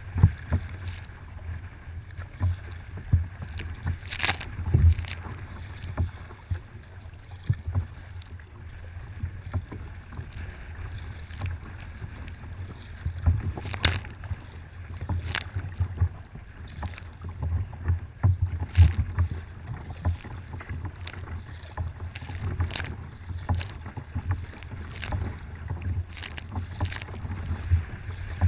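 Choppy water slapping and splashing against a kayak's bow at irregular moments, over a steady low rumble of wind buffeting the microphone.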